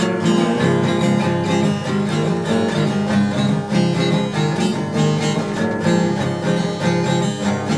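Music: an acoustic guitar plucked and strummed.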